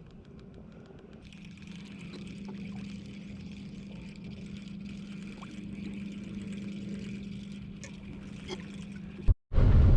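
A motor running with a steady hum, with a few light clicks over it; near the end the sound cuts out for a moment and a much louder low rumble starts.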